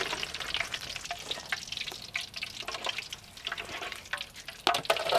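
Flour-coated chicken pieces deep-frying in a wok of hot oil, crackling and sizzling, while a metal utensil stirs them against the wok. A couple of louder knocks come near the end.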